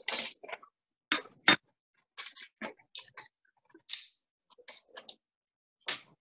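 Irregular light clicks and taps with a few short rustles: small hard pieces and paper bags being handled and set down on a counter.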